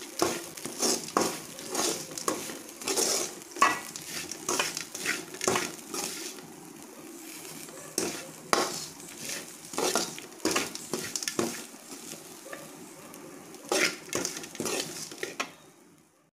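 Steel spoon scraping and clinking against a metal kadai as grated coconut is stir-fried in oil, with a faint sizzle underneath. The strokes come about one or two a second and stop just before the end.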